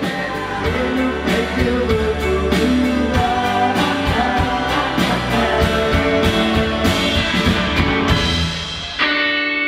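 Background music with a steady beat; near the end the beat drops out and a held chord remains.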